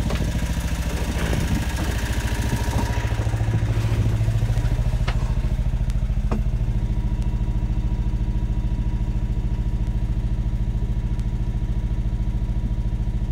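Sailboat's engine idling with a steady, even low beat. There is rustling and a few light knocks from handling in the first few seconds.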